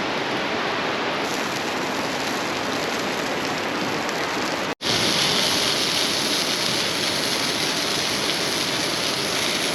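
Steady rushing, hissing noise that cuts out for an instant a little before halfway and comes back slightly brighter.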